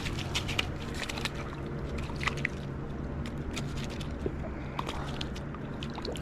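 Water sloshing and splashing with many small, sharp clicks scattered throughout, as a small smallmouth bass is brought in at the creek.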